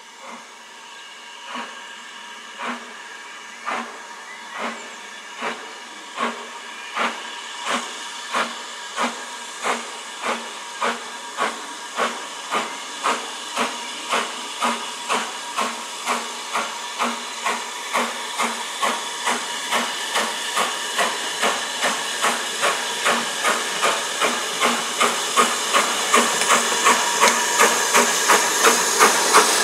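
BR Standard Class 4MT 4-6-0 steam locomotive 75069 hauling a passenger train, its exhaust chuffs growing steadily louder as it approaches. The beats quicken from about one a second to over two a second as the engine picks up speed, over a rising hiss of steam.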